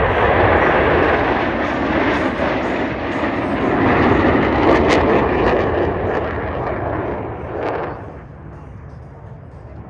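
Four Blue Angels F/A-18 Super Hornet jets passing low in formation: a loud, wide jet roar with two sharp cracks in it, dropping away about eight seconds in as the formation draws off.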